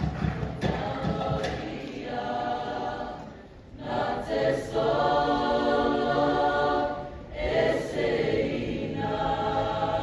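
A large mixed group of voices singing slow, long-held chords together, in three phrases with short breaks between them. A little applause dies away at the start.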